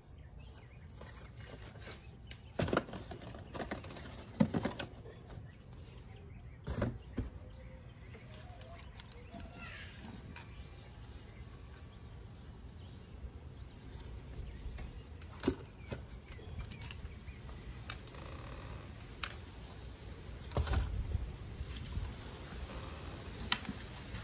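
Small cardboard boxes and packaged items being picked up, turned over and set down on a cardboard box: scattered taps and knocks, a few of them sharp and louder, over low steady background noise.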